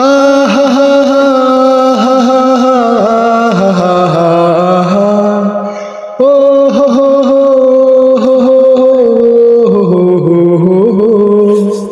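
A male singer sings a drawn-out wordless 'oho ho ho ho' refrain over backing music. It comes in two long held phrases, the second starting about six seconds in.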